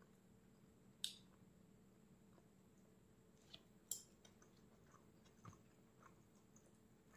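Faint, sparse eating sounds of a person chewing food: a few sharp, crisp mouth clicks, with the loudest about a second in and just before four seconds, and softer ones in between.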